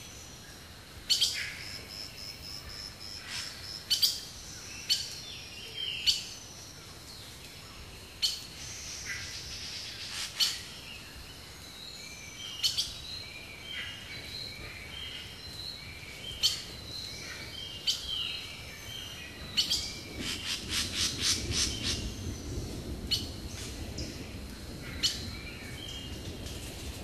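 Birds singing and calling: short, sharp chirps scattered throughout, with a fast run of repeated notes about two-thirds of the way through.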